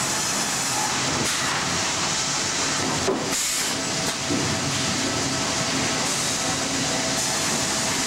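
Sawmill machinery running: a steady, loud industrial din of log conveyors and chain decks, with a faint hum, and a brief clunk about three seconds in.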